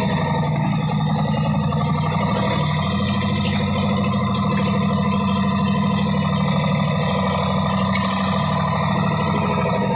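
Small fishing boat's engine running at a steady speed, with a few faint clicks on top.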